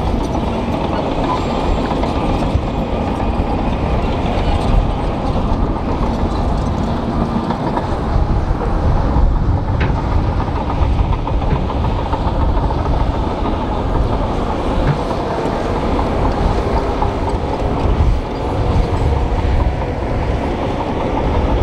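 Shantui crawler bulldozer pushing rock and soil: its diesel engine running steadily under load, with the steel tracks clanking and stones grinding under the blade.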